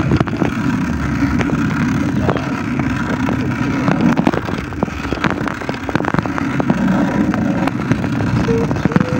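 Wind buffeting a phone's microphone during a bicycle ride: a steady low rumble, with scattered clicks and knocks throughout.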